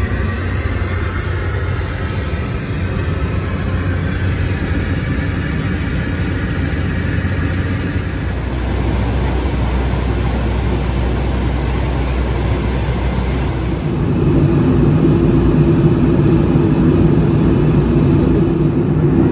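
Boeing 757-200 cabin noise in flight: a steady drone of engines and airflow. Its tone shifts about eight seconds in, and about fourteen seconds in it grows louder with a steadier hum.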